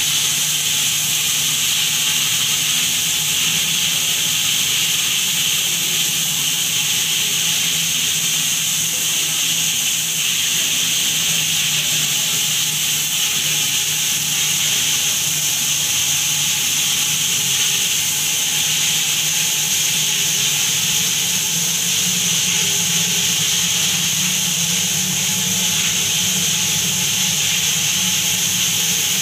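IPX6 water-jet test chamber running: a powerful jet from a 12.5 mm nozzle sprays against the glass walls with a steady, even hiss. A low steady hum runs underneath.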